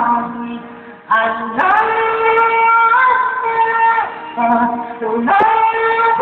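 A person singing loudly in a high voice, belting long held notes. The voice slides up into each note: one short phrase at the start, a long sustained note from about a second and a half in to about four seconds, then another slide up into a held note near the end.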